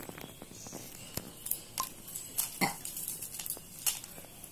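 Quilling paper strips and small craft tools being handled: a string of light clicks and rustles, with a brief voice-like sound about two and a half seconds in.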